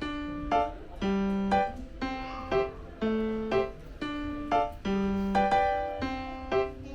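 Background music: a light, bouncy tune of plucked and keyboard notes in a steady rhythm, about two notes a second.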